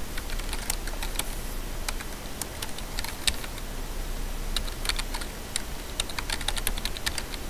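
Computer keyboard keystrokes as a terminal command is typed. The clicks come in irregular runs with pauses between them, and a quicker run comes a little past the middle.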